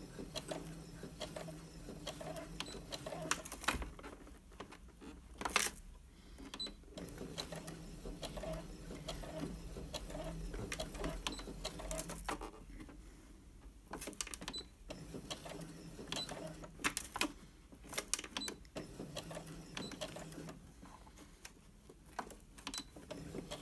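Brother F420 computerised sewing machine stitching in several short runs, stopping and starting again as the fabric is turned round a tight curve, with sharp clicks in the pauses between runs.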